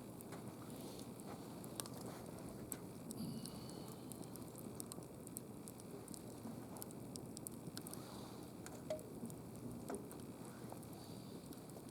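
Wood campfire crackling: irregular sharp pops and snaps over a low steady hiss of burning.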